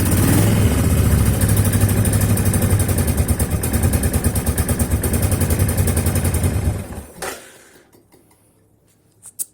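2000 Suzuki Intruder VL1500 LC's V-twin engine running steadily, then stopping about seven seconds in and dying away, with one short click near the end. The bike has sat for ten years and is taking gas on carburetors that the owner thinks still need clearing of gunk.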